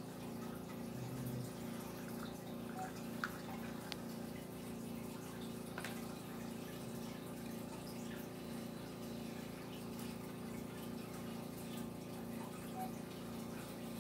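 Faint steady background hum with a slowly pulsing tone, and a few light clicks.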